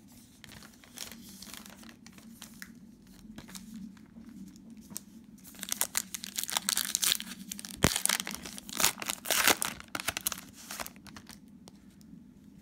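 Cellophane wrapper of a basketball card cello pack being torn open and crinkled. It starts as light rustling, then from about halfway through turns into a dense crackling, with one sharp snap in the middle of it.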